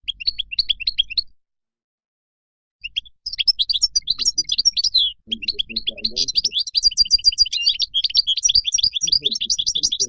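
European goldfinch singing its wild-type song: a short burst of fast twittering, a pause of about a second and a half, then a long unbroken run of rapid twittering trills and buzzy notes.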